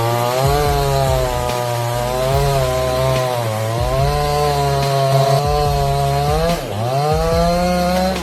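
Chainsaw running under load while cutting through wood, its pitch wavering as it bogs and recovers. It dips sharply about seven seconds in, then climbs back.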